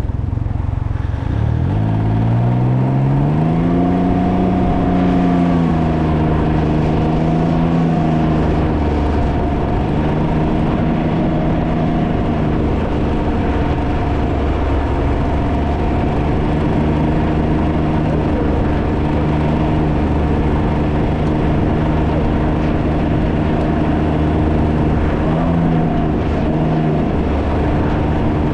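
Can-Am Ryker's three-cylinder engine pulling up through the revs, its pitch rising for a couple of seconds, then holding steady at cruise with a brief dip near the end. Heavy wind noise buffets the microphone underneath.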